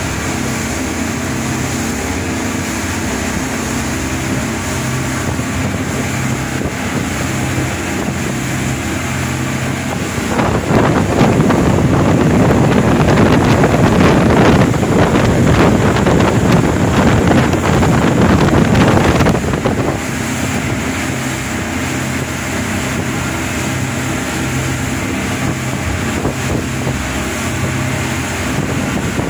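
Fast motorboat's engines running steadily under way, a constant drone with a pulsing low hum. From about ten to twenty seconds in, a louder rush of wind and water noise covers it, then the drone returns.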